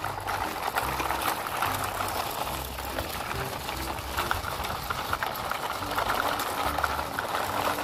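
Plastic toy trucks rolling over gravelly dirt: a steady crackling crunch of grit under the wheels, with many small clicks.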